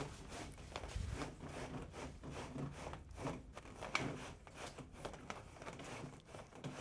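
Electrical cable and a draw string being hand-pulled through black twin-wall corrugated ducting, dragging against the duct's ridges in irregular scraping and rubbing strokes, with a sharper scrape about four seconds in.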